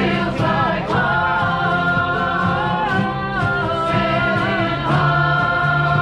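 A shanty band singing together in harmony over strummed acoustic guitars; from about a second in, the voices hold long sustained notes.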